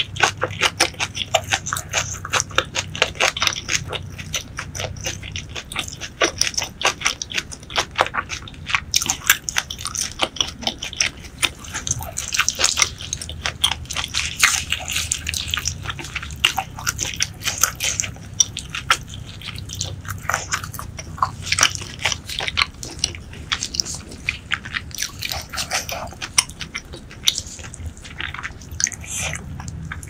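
Close-miked mouth sounds of someone eating braised pork leg: rapid chewing smacks and clicks, several a second, with a noisier stretch about halfway through as the meat is pulled apart by hand.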